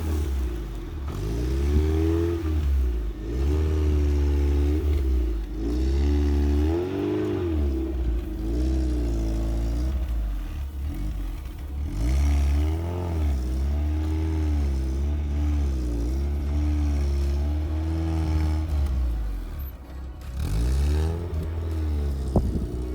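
Off-road vehicle engine revving up and falling back again and again, as on rough ground, with a deep rumble beneath. It briefly drops off about twenty seconds in, and there are a few sharp knocks near the end.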